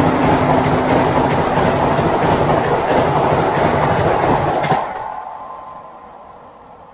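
Vande Bharat Express electric trainset passing close by at high speed: a loud rush of wheels and air with clickety-clack over the rail joints, the last of a horn note dying out in the first two seconds. The rush stops abruptly about five seconds in, leaving a faint rumble that fades away.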